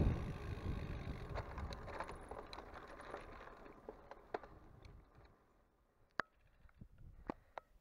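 Wind and rolling rumble from a moving bicycle dying away over about five seconds, then a few sharp, scattered clicks.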